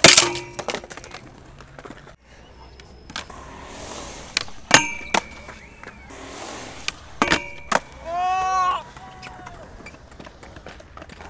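Skateboard on a steel flat bar: a loud clack as the board lands on the bar, the rail ringing after it, then wheels rolling on concrete. Two more pairs of sharp clacks with the bar ringing come about five and seven seconds in, and a short shout follows near the end.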